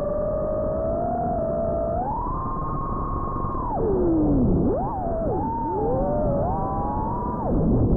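FPV quadcopter's brushless motors whining, the pitch following the throttle: steady for about two seconds, stepping up, then dropping sharply and climbing back twice in the second half as the throttle is cut and punched again.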